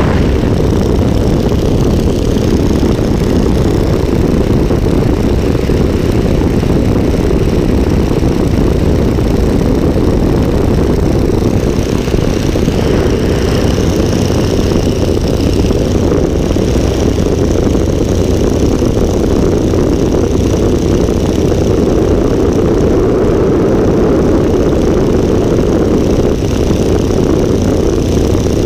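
Open-cockpit biplane's radial engine and propeller running steadily in flight, with wind rushing past the microphone.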